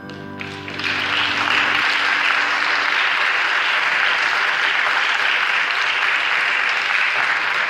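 The last handbell notes fade and stop, then an audience applauds steadily from about a second in.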